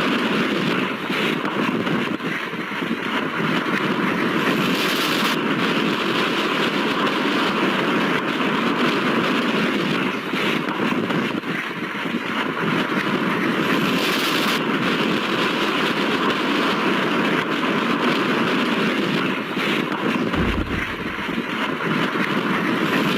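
Strong wind blowing with a steady rushing noise, as in storm footage of wind damaging houses.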